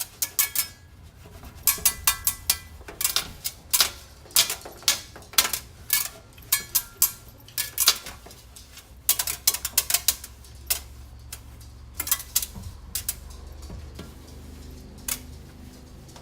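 Irregular sharp clinks and knocks of hard objects, like dishes or glass being handled, coming thick and fast for about the first eleven seconds, then only a few. A faint steady low hum sits under the later part.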